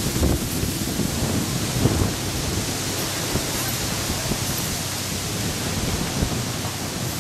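Steady wind rushing over the microphone, with irregular low rumbles as gusts buffet it.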